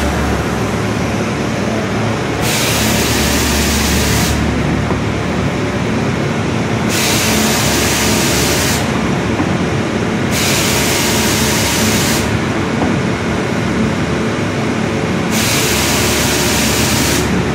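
Industrial wide-belt panel sander running steadily as a wood board is fed through, with a loud hiss that comes and goes in blasts of about two seconds, roughly every four to five seconds.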